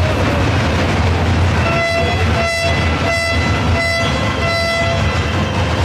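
A horn toots five short notes in an even rhythm, starting about two seconds in, over a loud, steady din from the crowded bear-dance parade.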